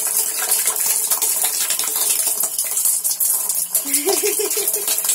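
Steady running water, with a baby's short, wavering whimper about four seconds in as it starts to cry.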